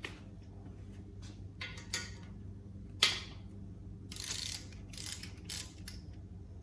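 Workshop noises of metal tools and parts being handled on a small-block V8 under teardown: scattered clicks and short scrapes, with one sharp knock about three seconds in, over a steady low hum.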